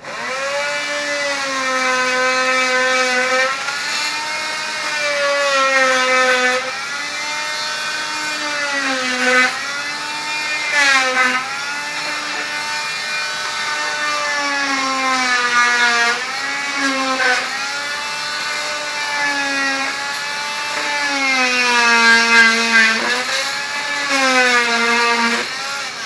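Small handheld corded power tool running and cutting into wood, its motor pitch sagging each time it bites and climbing back as it eases off, over and over. It stops just after the end.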